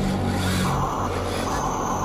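Radio-controlled model truck's electric motor and gears running, a whirr that comes and goes.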